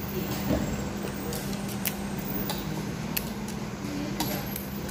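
Background room tone: a steady low hum with a few faint, scattered clicks.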